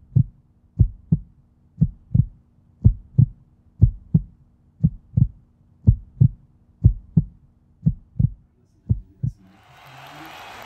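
Heartbeat sound effect: paired low thumps, about one beat a second, repeating evenly about ten times. Near the end it stops and a steady room noise comes in.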